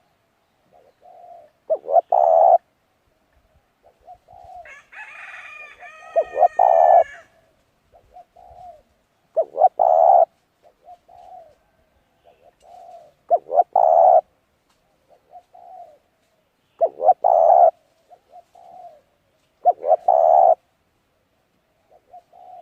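A dove or pigeon cooing: loud, low coos come about every three and a half seconds, with softer coos in between. About five seconds in, another bird gives a longer, higher call lasting a couple of seconds.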